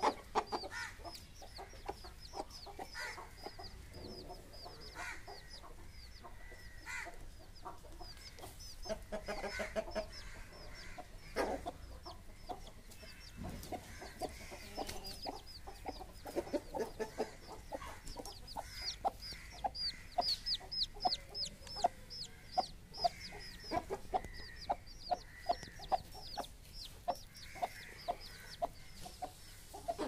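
Chickens clucking in short repeated calls that grow faster and more regular in the second half, over a steady run of high, quick chirps.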